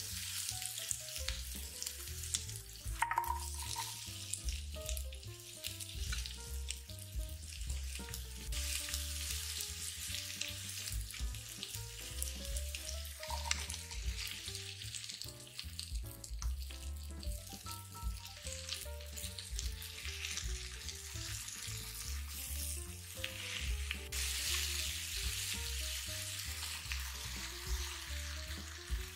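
Diced onion and vegetables sizzling and crackling in olive oil in a pot, with background music under it.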